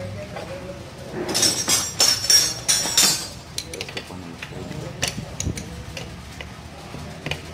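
Steel open-end spanners clinking and scraping against each other and the wheel-hub nut as they are fitted and worked on it. There is a busy run of metallic clinks about a second in, then a few single clinks.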